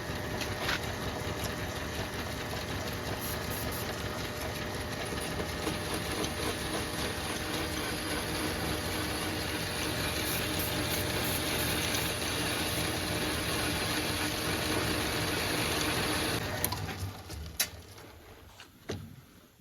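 Small metal lathe running steadily with a motor-and-gear whirr; it is switched off about sixteen seconds in and spins down, followed by a few sharp clicks.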